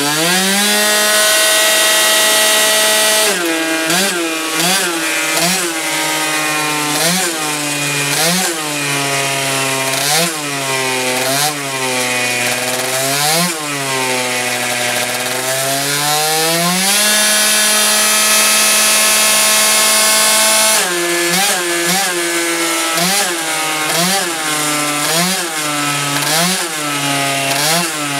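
Yamaha Aerox scooter's two-stroke engine, fitted with a Polini Evo 1 cylinder kit, a 24 mm Dellorto carburettor and a Polini For Race exhaust, revving hard as it drives a dyno roller. It climbs quickly to high revs and holds there for a few seconds. The throttle is then blipped over and over, so the revs dip and climb about once a second, with another long steady pull at high revs midway.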